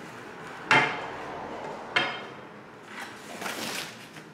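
A fluorescent tube being unpacked from its cardboard box: two sharp knocks a little over a second apart, then scraping and rustling of the cardboard near the end.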